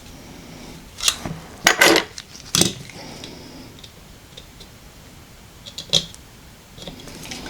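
Small phone body shell parts being handled and fitted together: a few sharp clicks and rattles, clustered between about one and three seconds in, with another single click about six seconds in.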